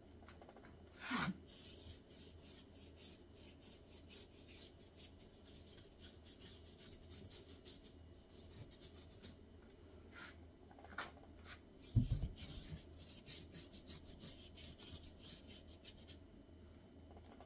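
Paintbrush bristles stroking across paper taped to a wall: faint, repeated scratchy brushing. A brief louder rustle about a second in, and a dull thump about twelve seconds in.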